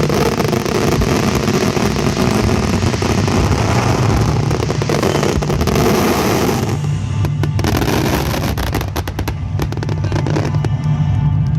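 Starmine fireworks barrage: a continuous run of bursts and booms, then dense rapid crackling from about seven seconds in. Music plays underneath.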